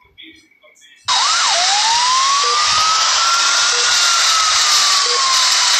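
Ambulance siren in a slow wail, starting abruptly about a second in, with a quick up-and-down yelp and then one long rise and fall in pitch, over a loud steady hiss. Faint short beeps repeat about once a second beneath it.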